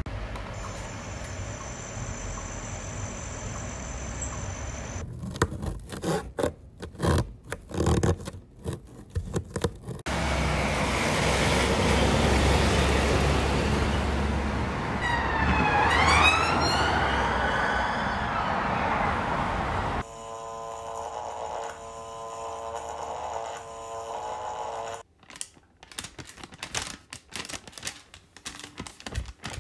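A run of separate short recordings: first a bird calling, a thin high steady note over faint hiss; then a car passing by, a loud even rush of road noise with a low rumble; and near the end plastic sheet crinkling in irregular crackles.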